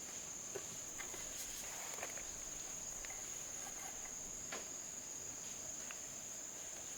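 Crickets chirring steadily in one high band, with a few faint light clicks and taps scattered through.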